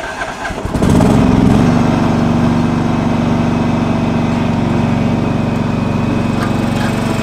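Small engine of the vehicle towing a loaded utility cart revs up about a second in, then runs at a steady speed as it pulls the cart along.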